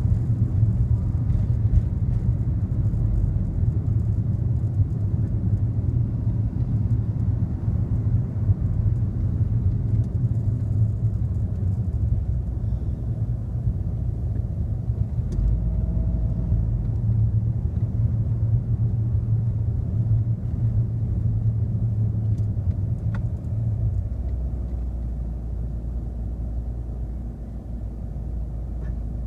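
Low, steady rumble of a car driving slowly in city traffic, engine and road noise, easing somewhat near the end.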